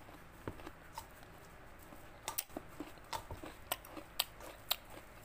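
Wooden masher pounding boiled sweet potato and grated coconut in a metal basin: a run of short, irregular taps that come more often in the second half.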